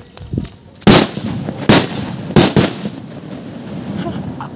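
Homemade Zamboanga-style firecrackers lit together and exploding as four sharp bangs within about two seconds, the first the loudest.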